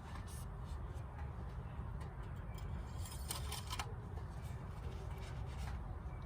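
Faint handling noises: light rustling and a quick cluster of clicks and scrapes about three seconds in, over a steady low hum.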